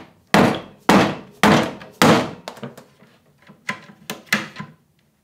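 Dead blow mallet striking a wooden cabinet panel: four heavy thuds about half a second apart, then several lighter taps. The blows are knocking apart a stuck glued joint in the cabinet.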